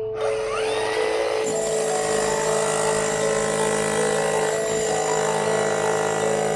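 A power tool running steadily with a high whine, over background music with a light mallet-percussion melody.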